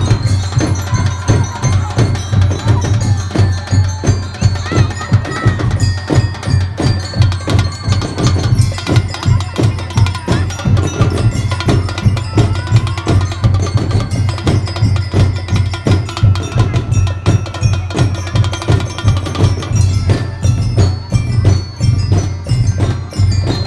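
Drum and bugle corps playing a march: drums beat a steady rhythm under a ringing glockenspiel-style mallet-bell melody.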